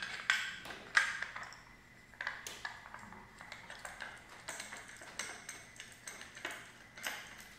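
Metal parts of a Sky-Watcher AZ-GTi mount and its equatorial wedge clinking and tapping together as they are fitted and tightened by hand. There is a string of light, irregular clinks, each with a brief ring, louder about a second in and again a little after two seconds.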